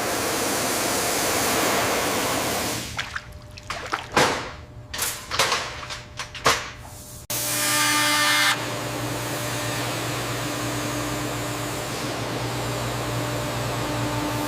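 A steady rushing hiss, broken from about three to seven seconds in by a run of sharp knocks. A motor then starts and runs steadily with a low hum.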